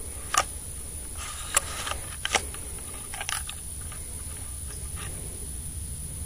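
Several short, sharp clicks and taps close to the microphone, irregularly spaced with the loudest in the first couple of seconds, over a low steady hum.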